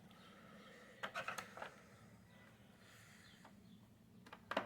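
Faint clicks and scrapes of a tool working at the screws of a vacuum cleaner's plastic housing: a short cluster about a second in, one more a little past the middle, and a few near the end. The screws are hard to get out.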